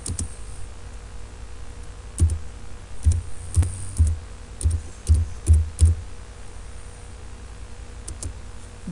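Computer keyboard typed one key at a time: about a dozen irregular keystrokes, each a click with a dull thump. Most are bunched in the first six seconds, with a pause and a couple more near the end.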